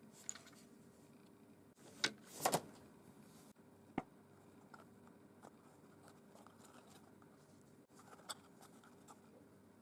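Quiet handling noises: a few light clicks and a brief rustle around two seconds in, with a sharp click about four seconds in, over a faint steady hum.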